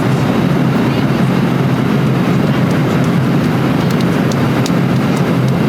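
Airliner cabin noise heard from inside the cabin: a loud, steady, low-pitched rush of jet engines and airflow.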